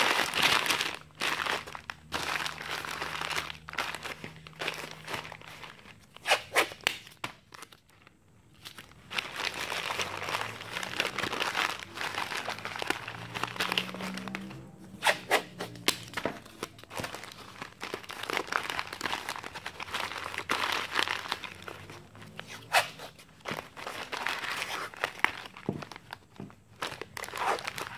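Newspaper crumpling and crinkling as it is scrunched and pressed around a paper sculpture form, in many short irregular rustles, with masking tape pulled and torn from the roll.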